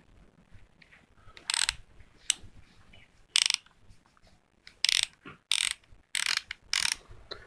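A Minimax 1/2 inch drive socket ratchet being worked by hand, its pawl clicking over the teeth in about six short bursts of rapid clicks.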